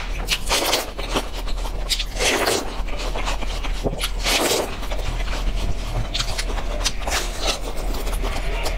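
Close-up eating sounds: biting into and chewing a slice of watermelon, a run of irregular crunchy bites and chews. Near the end it turns to chewing a bite of mooncake.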